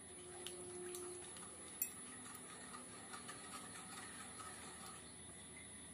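Faint clicks and light scraping of a spatula stirring thick almond milk in a wok, with one sharper tap about two seconds in. A short, faint steady tone sounds in the first second.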